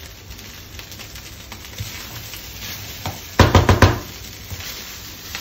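Fried rice sizzling steadily in a nonstick wok, with a quick run of sharp knocks about three and a half seconds in as the wooden spatula strikes the pan.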